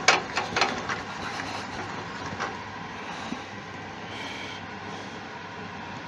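Small metal pen-kit parts clicking and knocking as they are handled and fitted, a few sharp clicks in the first second, over a steady background noise.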